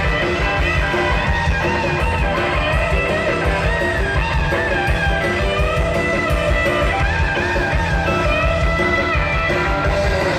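Live rockabilly band playing loud, with an electric guitar lead of wavering, bent notes over a driving bass and drum beat.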